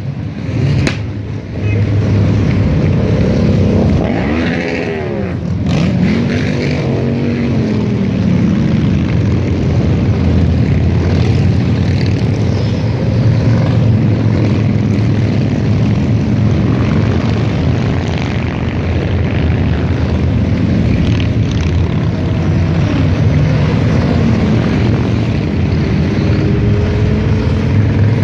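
A long procession of motorcycles riding past one after another, their engines running in a continuous drone. The pitch of individual bikes rises and falls as they pass close by, most clearly about four to six seconds in.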